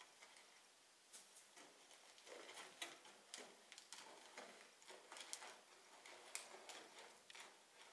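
Faint, irregular soft hoof steps of a horse walking on deep sand footing, with light scuffs and ticks, starting about a second in.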